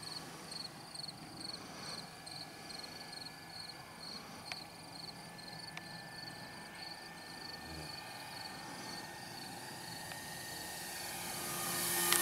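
Insects chirping at dusk in an even, high-pitched rhythm of about three chirps a second. Near the end a rushing noise swells as the electric RC plane comes close.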